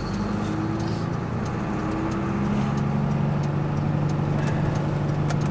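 Lorry's diesel engine running at low revs, heard from inside the cab, its note stepping up slightly about two seconds in as the truck pulls away slowly.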